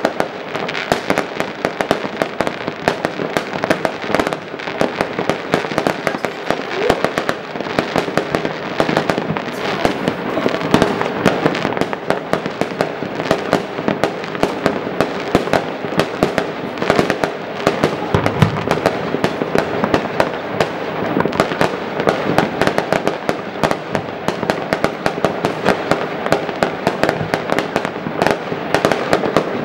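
Many fireworks going off at once across a town: an unbroken mass of overlapping bangs, pops and crackles, with no pauses.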